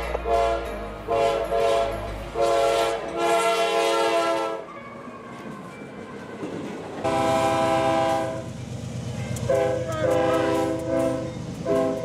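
Diesel freight locomotive's multi-chime air horn sounding a series of blasts for a grade crossing: several blasts in the first few seconds, then after a short pause more blasts as the locomotive passes close, over a low engine rumble and wheel noise.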